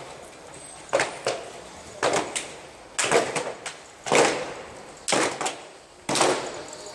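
Rhythmic percussive hits, about one a second, each a sharp strike that rings out briefly, some quickly followed by a second, lighter hit.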